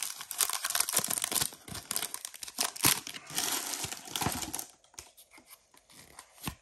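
Foil wrapper of a Pokémon TCG booster pack crinkling as it is torn open and handled, dense and crackly for the first four and a half seconds. After that come a few faint clicks as the cards are handled.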